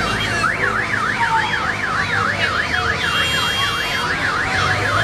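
Electronic siren in a rapid yelp, its tone sweeping up and down about three times a second without a break.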